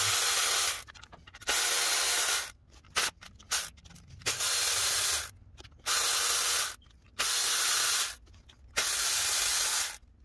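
Cordless power tool running in six bursts of about a second each, with short pauses and small clicks between them, as it spins out the water pump's 8 mm bolts one after another.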